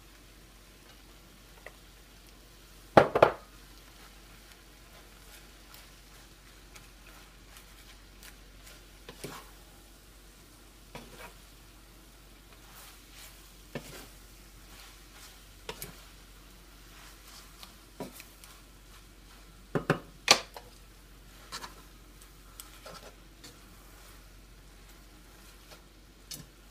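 Spatula stirring and tossing noodles and vegetables in a nonstick frying pan over a faint, steady sizzle, with scattered sharp knocks of the spatula against the pan. The loudest knocks come in a quick cluster about three seconds in and another about two-thirds of the way through.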